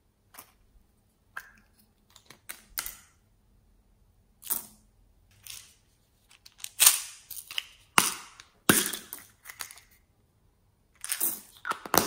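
Small hard plastic toys being handled and snapped open by hand. It is an irregular run of sharp clicks and taps, the loudest a few snaps in the middle, mixed with short rustles of plastic.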